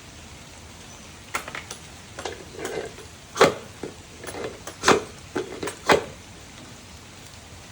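Ferro rod struck repeatedly with a scraper to throw sparks onto tinder: a string of sharp scrapes, the three loudest about a second and a half apart, over steady rain hiss.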